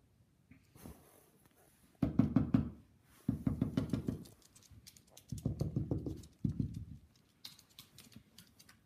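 Small dog's paws pattering and scrabbling on a hardwood floor in four quick bursts of rapid taps as it runs about in play.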